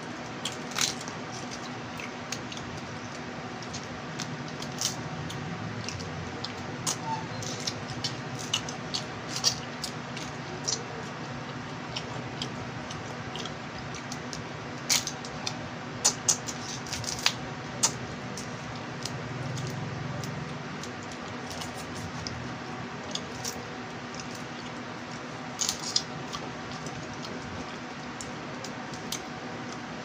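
Small cooked alimasag (swimming crabs) being cracked and picked apart by hand and chewed. Scattered sharp cracks and clicks of shell sound over a steady background hiss and hum.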